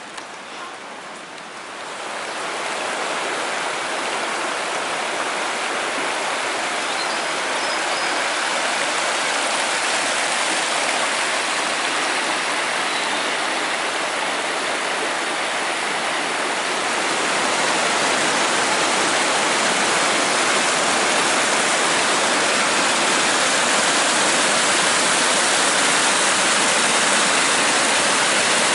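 Waterfall in the Dolgoch ravine: a steady rush of falling water that swells about two seconds in and grows louder again after about seventeen seconds.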